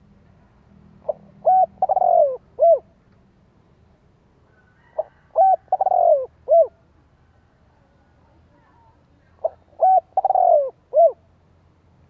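Spotted dove cooing: three phrases of four or five short coos each, some dropping in pitch, repeated about every four seconds.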